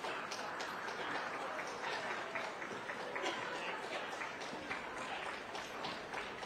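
Spectators applauding: many handclaps overlapping steadily over general crowd noise.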